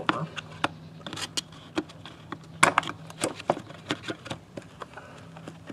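Irregular light metallic clicks and clinks as parts are handled and fitted onto a throttle body by hand, the sharpest about two and a half seconds in.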